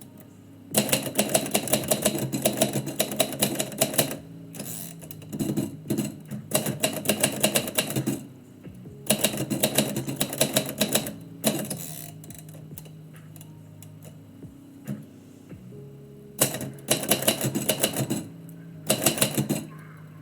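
Typewriter keys struck in quick runs of typing, four bursts of rapid clacking separated by short pauses.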